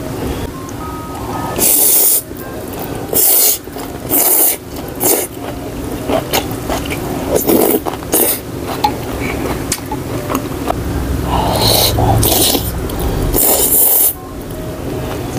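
Close-miked slurping of bún bò noodles and broth and blowing on hot spoonfuls, in short loud bursts every second or two.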